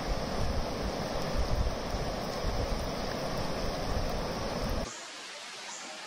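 Rushing river water, a steady dense rush with gusty low rumbles of wind on the microphone. It cuts off abruptly about five seconds in, leaving a much quieter background with a few faint high chirps.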